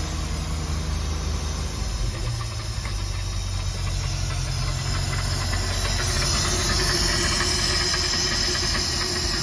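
MerCruiser 4.3 L V6 marine engine running with a spark gap tester in one plug lead, being brought down toward idle, with its pitch dropping about two seconds in. The owner believes the spark from its Thunderbolt ignition module is very weak: the engine was very hard to start at this gap. A hiss grows stronger from about six seconds in.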